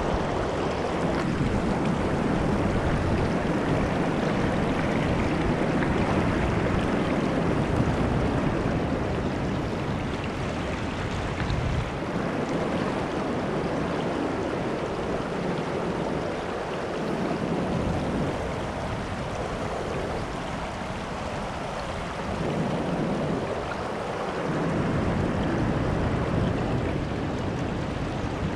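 Shallow river water rushing over rocks in a riffle, a steady wash of noise, with wind buffeting the microphone now and then.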